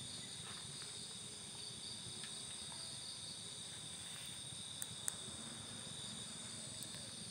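Crickets and other night insects chirring steadily in several high-pitched layers, with two faint ticks about five seconds in.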